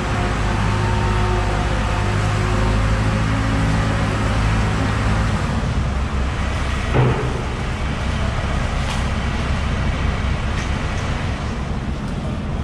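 Water from a hose splashing over a large tuna on a wet cutting table, over a steady engine-like hum. A single knock about seven seconds in.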